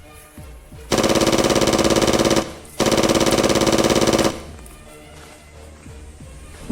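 Two bursts of rapid automatic machine-gun fire, each about a second and a half long, with a short gap between them.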